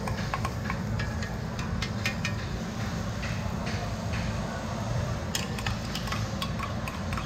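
Metal spoon clinking and scraping against a steel mixing bowl as okonomiyaki batter is scooped and spread on a hot griddle: scattered sharp clicks in small clusters, over a steady low hum.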